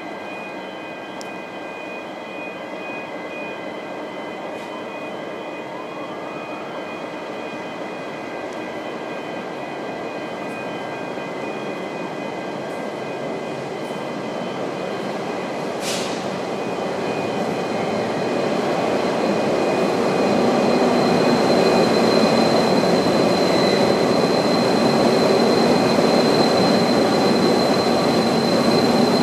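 V/Line N class diesel-electric locomotive running light engine, its engine and running gear growing steadily louder as it approaches and passes close underneath. A thin steady high tone joins in over the last third, and there is one sharp click about sixteen seconds in.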